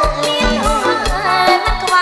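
Khmer romvong dance music played live by a band with drum kit and electric bass: a melody over a steady beat.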